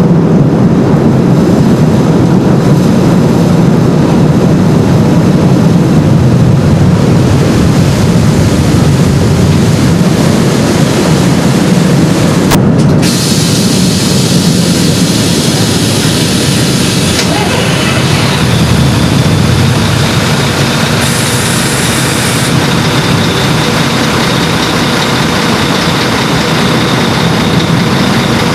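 Car ferry's engines and propellers running, a loud steady low drone heard from the open car deck as the ship manoeuvres into its berth, with a brief sharp click about halfway through.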